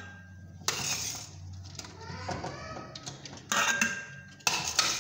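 Metal spoon scooping par-boiled rice and scraping and clinking against the rims of an aluminium cooking pot and a steel colander, in three short bursts with a brief metallic ring.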